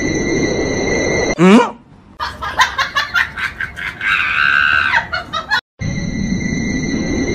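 A white-and-orange cat yowling open-mouthed, with one long held cry about four seconds in among a run of short choppy calls. A short, loud rising cry comes about a second and a half in, and a steady background of music fills the start and the end.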